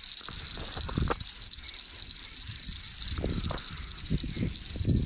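A spinning reel being cranked and handled while a hooked lake trout pulls the ice-fishing rod into a bend. It comes with irregular soft knocks and rustles, and a steady high-pitched whine runs throughout.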